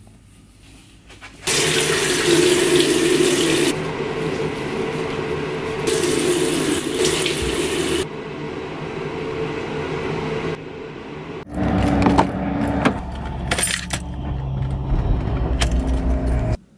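Water running from a bathroom tap into a sink, in a few short cut clips; then, from about eleven and a half seconds in, a car's engine running heard from inside the cabin, with clicks and rattles, cutting off suddenly near the end.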